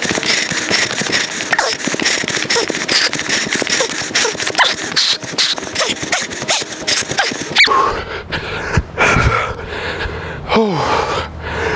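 A person panting and gasping hard from running, over a fast run of clattering footfalls. About two-thirds through the footfalls stop, and near the end comes a drawn-out falling groan.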